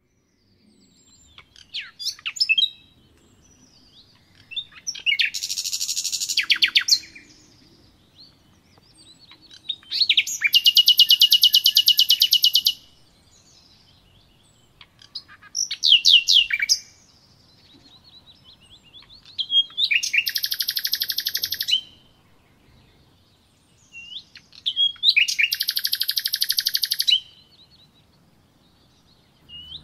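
A small songbird singing: phrases every few seconds, each starting with a few quick sweeping notes, and most running into a fast, buzzy trill about two seconds long.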